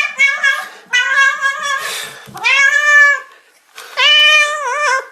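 Domestic cat meowing loudly, about four long drawn-out meows one after another, the last one wavering near its end.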